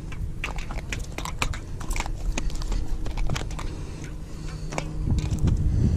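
Irregular sharp clicks and crackles from handling a hooked red snapper and its leader line at the boat's side, over a low rumble and faint steady hum.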